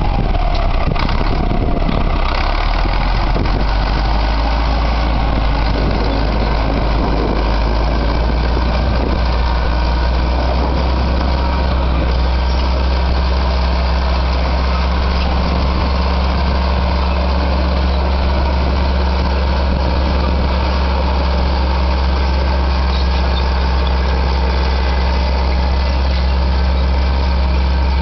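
Caterpillar D4D bulldozer's diesel engine running steadily with a deep low hum.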